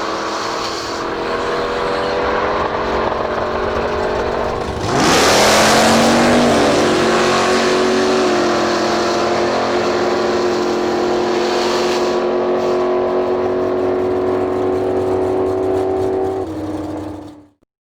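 Drag race car engine at full throttle. About five seconds in it surges loudly as the car passes, its pitch dropping sharply, then it holds a steady high-revving note until the sound cuts off abruptly near the end.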